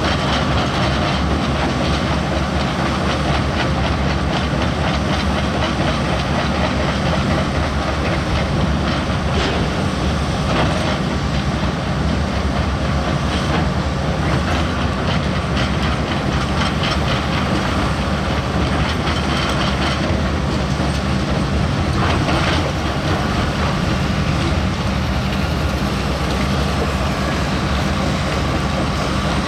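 Heavy diesel earthmoving machine running steadily under load, a low even engine note with constant metallic clattering over it.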